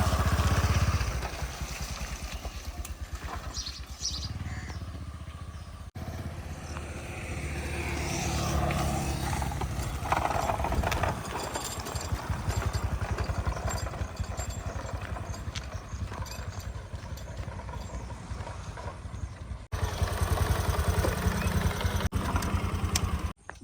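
Diesel engines of a JCB 3DX backhoe loader and a tractor running with a fast, even knocking rhythm while mud is loaded. The sound jumps abruptly about six seconds in and again near the end.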